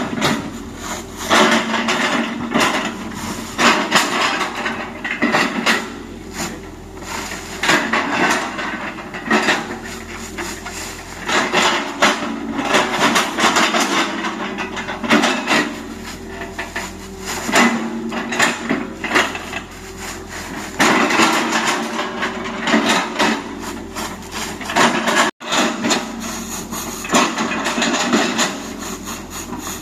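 Hitachi Zaxis 130 excavator chopping oil palm trunks with its bucket: irregular, repeated crunching knocks of splitting wood over the steady hum of its diesel engine.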